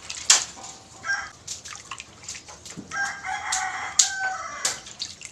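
Hands squeezing and kneading grated coconut in a bowl of water to press out the coconut milk: wet squelching and splashing with sharp drips. A rooster crows once in the background about three seconds in.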